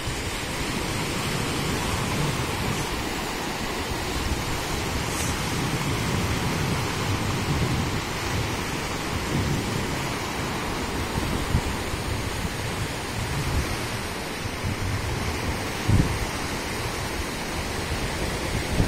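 Surf breaking and washing up the shore, with wind rumbling and buffeting on the microphone; a couple of brief sharper bumps stand out, the loudest about three-quarters of the way through.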